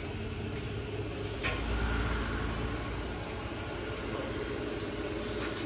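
Steady low mechanical hum, with one sharp knock about a second and a half in.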